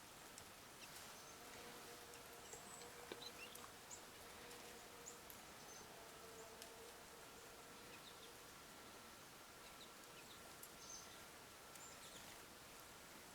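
Faint, scattered short high chirps and calls of small songbirds over a quiet background, with a faint steady hum beneath.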